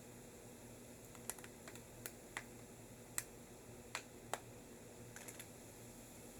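About a dozen light, sharp clicks at irregular intervals, some in quick pairs, over a steady faint hiss.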